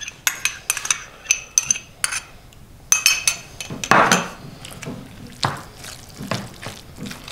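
A metal spoon clinking and scraping against a small ceramic ramekin as mayonnaise is scooped out: a quick run of sharp, ringing clinks, then a few more. Near the end, a wooden spoon stirs in a ceramic bowl.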